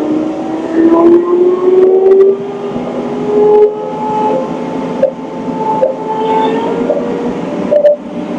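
Compact tractor engine running, its pitch rising steadily over the first few seconds as it is revved up, then running on at a steady speed.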